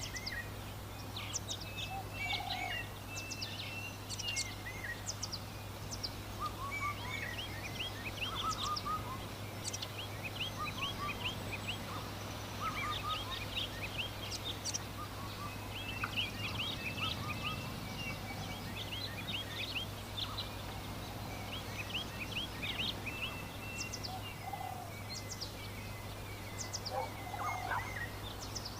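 Many small birds chirping and twittering in a busy, continuous chorus, over a steady low hum.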